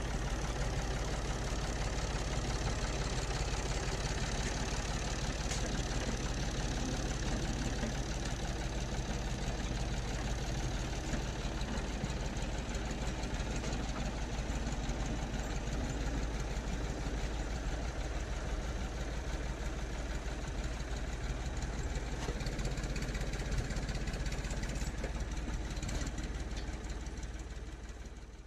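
Ford 4500 backhoe's engine running steadily at a low, even note, which fades out near the end.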